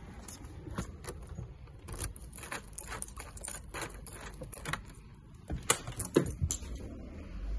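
A bunch of keys jangling on a key ring as a front-door lock is unlocked, with a few louder sharp metallic clicks from the lock and lever handle near the end.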